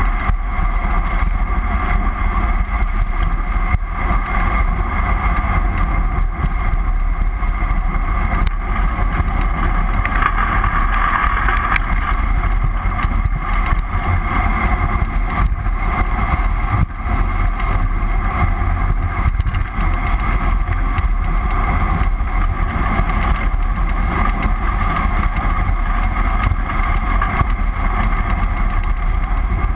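Steady wind rush buffeting an action camera's microphone during a fast bicycle descent, with a deep, continuous rumble underneath from wind and tyres on asphalt.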